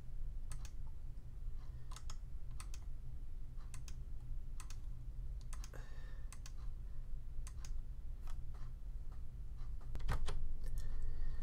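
Irregular single clicks of a computer mouse and keyboard keys as stitch points are placed and stitch-type shortcut keys pressed, over a steady low hum.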